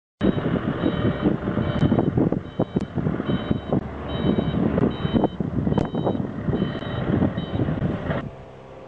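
Forklift reversing alarm beeping over loud engine and yard noise, with a few sharp knocks. Near the end it drops to a quieter steady machine hum.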